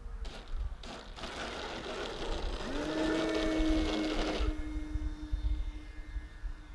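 Electric RC model airplane (Wingman 1525 mm foam trainer) with its motor and propeller spooling up about two and a half seconds in to a steady drone, over a loud rushing noise that stops near the middle. Wind buffets the microphone throughout.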